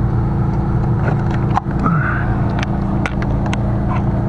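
A steady, loud mechanical hum with a low drone, like a running motor, under several light clicks and taps from handling wires and tools.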